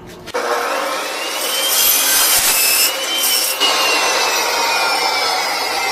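A 14-inch Diablo metal-cutting saw blade cutting through steel: a loud grinding hiss that starts suddenly about a third of a second in, over a ringing whine that climbs and then slowly falls as the cut goes on.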